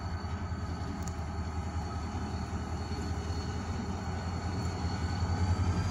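Low, steady diesel engine rumble of a CSX locomotive close by, heard from inside a car, growing a little louder near the end, with a thin high whine above it.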